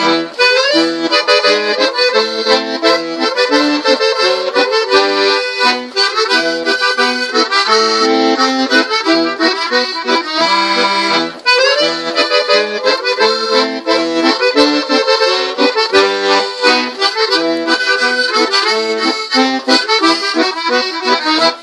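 Harmonica playing a tune in chords, with a brief pause about halfway and the tune ending right at the close.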